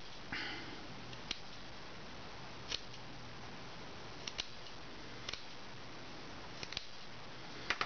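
Scissors snipping the edge of thick fabric glued around a card shape: a few faint, separate snips at uneven intervals, with a brief rustle of the fabric being handled about half a second in.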